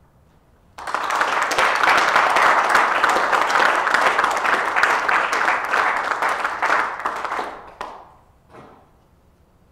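Group of people applauding, starting suddenly about a second in, holding for about six seconds, then fading out with a few last claps.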